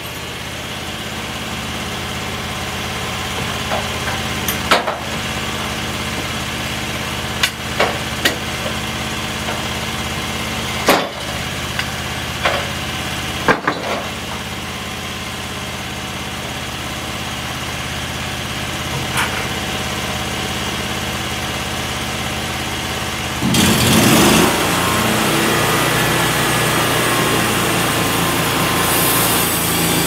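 Homemade bandsaw mill's small engine idling steadily, with a few sharp knocks as the heavy squared spruce beam is turned and set on the mill's track. About 23 seconds in, the engine speeds up and runs louder as the mill is brought up to cutting speed.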